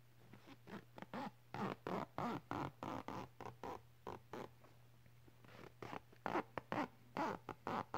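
A sheet of paper crinkled and rustled in the hands right at the microphone, a quick run of short crackles about four a second, with a pause of about a second midway.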